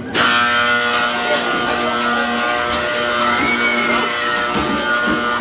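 Music that starts abruptly, with several steady held notes sounding together.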